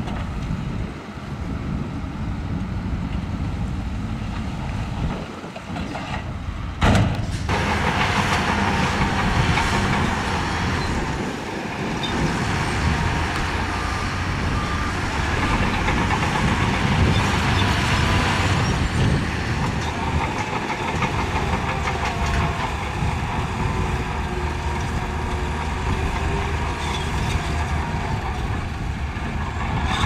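Heavy diesel earthmoving machinery at work, its engine running steadily. About seven seconds in comes a sharp knock, and after it a louder, noisier sound joins the engine.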